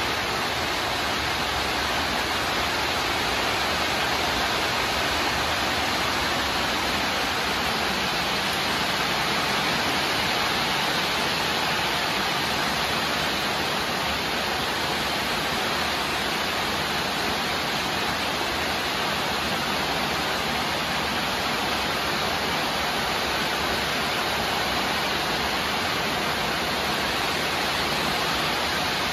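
Steady rushing noise of running water, even and unbroken, with no single splash standing out.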